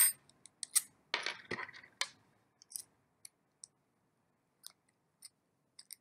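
Small clicks and a brief rattle of an Allen wrench and small screws being handled at a plastic keypad casing and on a wooden tabletop, busiest in the first two seconds, then only a few faint ticks.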